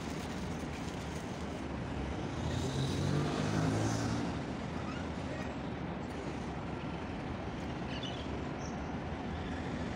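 Steady road traffic, with one vehicle's engine passing louder about three seconds in and fading a second later.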